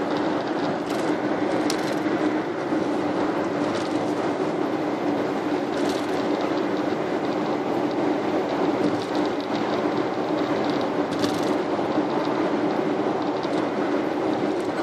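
Car cruising at expressway speed heard from inside the cabin: steady tyre and engine drone with a low hum. A few light clicks come through, one about a second in and one near eleven seconds.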